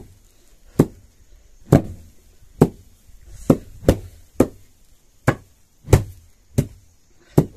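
Long wooden sticks beating a heap of sun-dried, crisp barnyard millet (jhangora) to thresh the grain: sharp knocks about once a second, around ten strikes, from two people taking turns.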